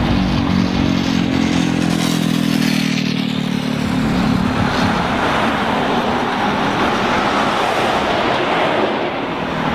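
A car engine running with a steady low hum. From about five seconds in, the hum gives way to a broad rushing noise of engine and road as the car moves off.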